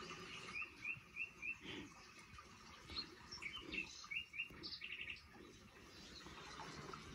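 A small bird chirping, a quick run of four short rising chirps and then a second run a couple of seconds later, along with soft rustles of plastic toy figures handled on carpet.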